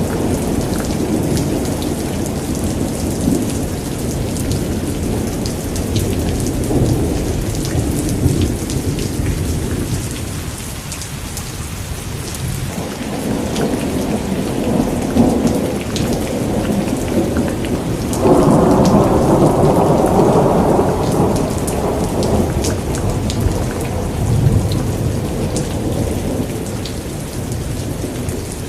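Heavy rain falling steadily with drops pattering, under thunder rumbling low and rolling on and off. About eighteen seconds in, a louder peal of thunder breaks and rolls for a few seconds.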